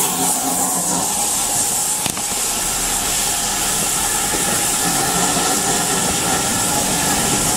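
Steam locomotive hauling coaches beneath a footbridge, giving off a loud, steady hiss of steam over the running noise of the train.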